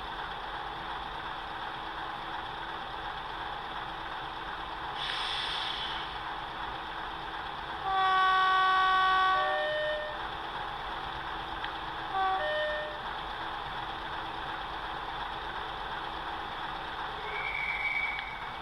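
Model-railway sound decoder playing a British Class 47 diesel locomotive through the model's small speaker: the engine runs steadily, with a long two-tone horn blast about eight seconds in, a high note falling to a low one, and a short two-tone toot around twelve seconds. A brief hiss comes about five seconds in.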